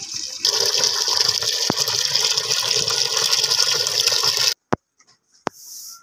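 Water from a tap pouring and splashing into a metal bucket as it fills; the rush grows louder about half a second in and stops abruptly near the end, followed by a few sharp clicks.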